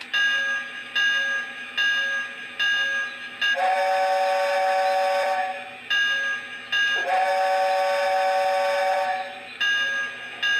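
Lionel LionChief Hogwarts Express model steam locomotive's onboard sound system: a locomotive bell ringing at a stroke a little under once a second, broken by two long steam-whistle blasts, each just under two seconds, about four and seven seconds in.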